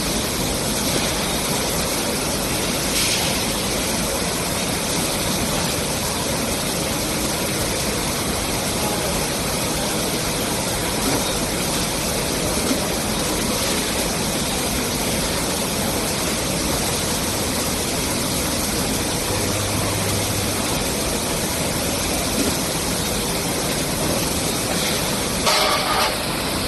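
Steady, even noise of a tomato paste can filling line running: a pneumatic piston filler and conveyor. A few brief sharper sounds come through, with a short louder clatter near the end.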